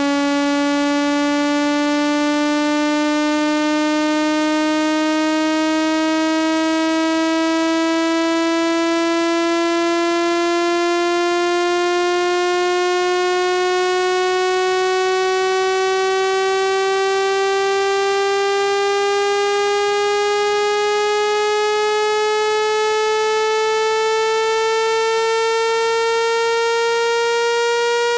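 Electronic water-eject tone: a buzzy synthetic tone rich in overtones, rising slowly and evenly in pitch at constant loudness, played to vibrate trapped water out of a phone speaker.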